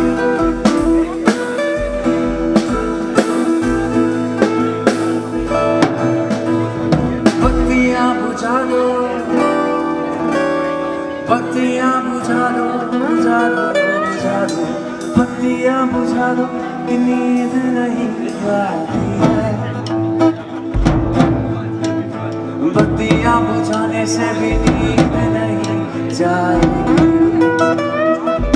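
Live acoustic band music: two acoustic guitars played together with a Sonor drum kit, kick-drum thuds and sharp drum and cymbal hits throughout.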